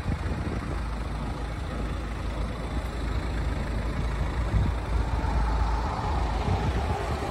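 BMW X4 engine idling, a steady low rumble, with a faint higher hum coming in about five seconds in.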